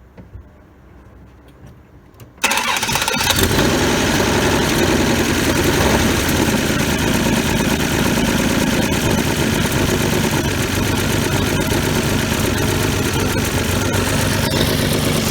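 The 1966 Dodge Dart GT's 225 slant-six engine starts about two and a half seconds in and then runs steadily at idle.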